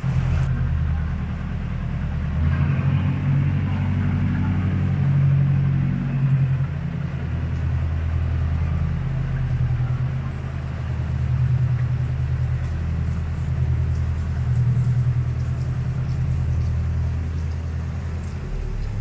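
Sightseeing boat's motor running with a steady low drone that swells and eases a little, over a faint hiss of moving river water.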